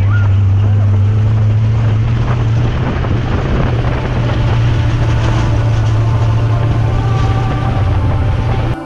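Dune buggy engine running steadily at speed over sand, a strong low hum with a broad rushing noise over it.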